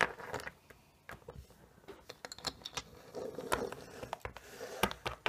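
Small plastic toy wagon rolling over a tabletop, with scattered light clicks and knocks of plastic Littlest Pet Shop figures being handled. The sharpest knock comes at the very start.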